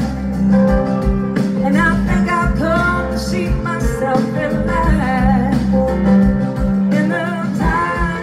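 Live rock band playing, with a woman singing lead over electric guitar, bass and drums.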